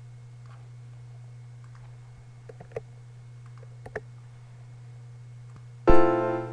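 A few faint, short computer clicks, about two pairs a second or so apart in the middle, over a steady low hum. Near the end a voice comes in suddenly with a held vowel.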